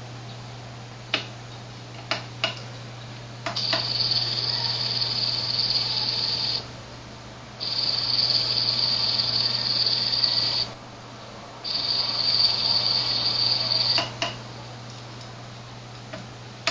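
Small PWM-driven DC motor of a timelapse camera dolly switched on and off three times, running each time with a steady high-pitched whine, the PWM drive noise; sharp clicks mark each start and stop and come several times before the first run.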